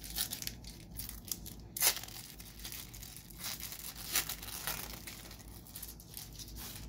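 The foil wrapper of a 2012 Panini Golden Age trading card pack being torn open and crinkled by hand: a run of crackling tears, the sharpest about two seconds and about four seconds in.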